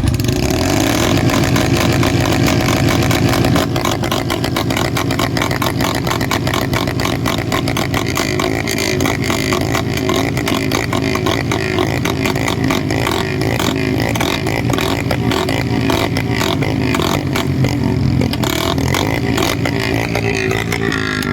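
Two Royal Enfield Classic 350 single-cylinder motorcycle engines, a 2019 and a 2023, running together through long bottle Punjab silencers, with a steady exhaust beat.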